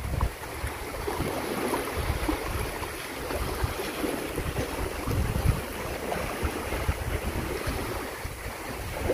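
Wind gusting on the microphone over the steady wash of sea waves.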